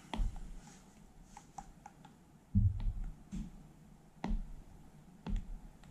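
A stylus tip tapping and dabbing on an iPad's glass screen: scattered light clicks, with three duller taps in the second half.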